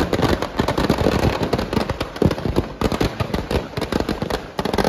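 Firecrackers packed inside a burning Dussehra effigy going off in a rapid, continuous crackle of bangs.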